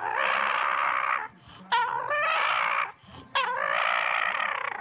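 English bulldog making three long, hoarse vocal sounds, each lasting about a second, with short pauses between.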